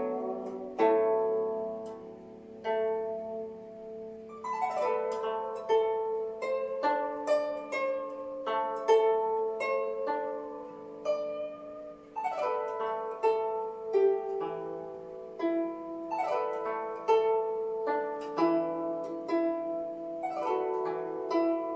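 Guzheng (Chinese zither) playing a melody of plucked, ringing notes, broken by several rippling glissando sweeps across the strings.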